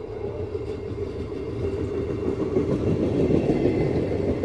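Trenord regional passenger train, cab car leading, rolling past on the near track: steady rumble of wheels on rail, growing louder as the coaches draw level.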